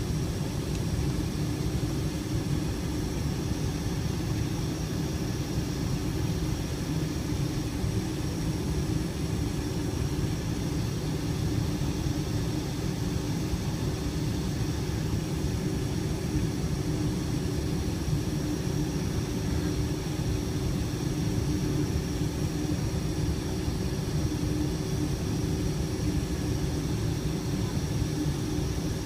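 Cabin noise of a Boeing 747-400 taxiing, heard from a window seat over the wing: a steady low rumble from the jet engines at taxi power, with a constant hum and a faint high whine.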